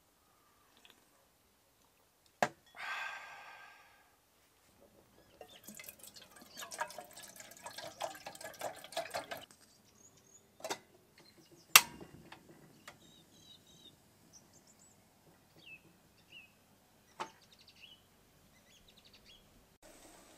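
Water pouring and splashing in a camping kettle for several seconds. About twelve seconds in, its metal lid is set on with a sharp clink. Faint bird chirps follow.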